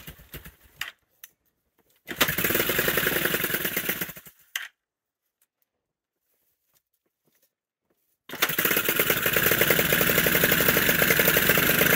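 Chinese 250cc dirt bike engine starting up on fresh fuel: it runs for about two seconds, then after a silent gap it runs again from about eight seconds in, a steady rapid beat that grows a little louder. A few clicks come before it.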